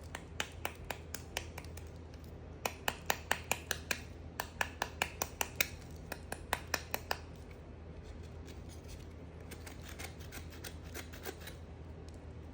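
A blade cutting through dry soap, giving crisp crunchy clicks in quick runs of several a second; the run in the middle is the loudest, and the clicks grow fainter near the end.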